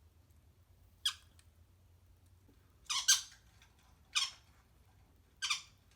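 A pet parrot squawking: four short, shrill calls spread a second or so apart, the second one a quick double call.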